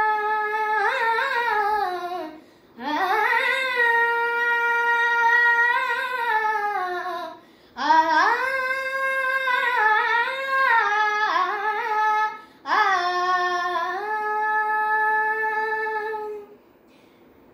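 A boy singing a Kannada devotional song (a Dasara pada) unaccompanied, drawing out long held notes with gliding ornaments. Four phrases, each separated by a short breath pause, the last fading out near the end.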